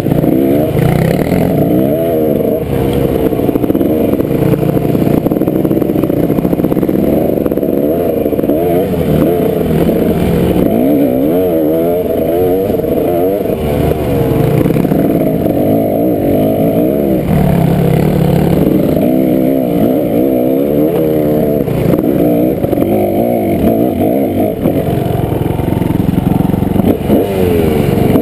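Dirt bike engine heard close up from the bike itself, revving up and down again and again with the throttle as it rides a rocky trail. Loose rock clatters under the tyres.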